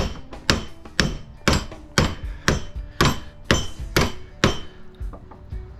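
Steady hammer blows, about two a second, on a small transformer held in a bench vise, pounding to drive its copper winding out of the steel core, where shellac holds it fast. Each blow leaves a short metallic ring. The blows stop near the end with a couple of lighter taps.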